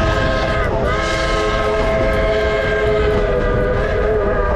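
Durango & Silverton narrow gauge steam locomotive blowing its chime whistle in a long, steady chord over the rumble of the moving train. The pitch dips and comes back about a second in as the whistle is eased and pulled again, and the chord ends near the end.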